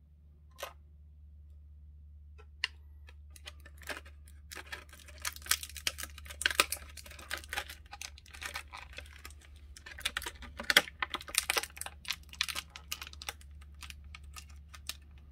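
Plastic toy packaging being handled and opened by hand: a few separate sharp clicks, then a dense run of rapid clicks and crackles for several seconds that thins out near the end.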